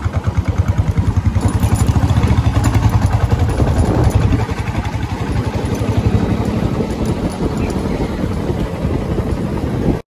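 Motorcycle engine running at riding speed, close by, with a fast, even pulsing beat.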